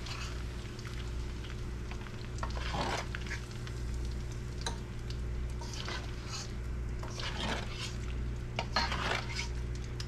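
A slotted metal spoon scraping and clinking against a pan of hot frying oil as small bluegill fillet pieces are scooped out, with the oil sizzling. A steady low hum runs underneath.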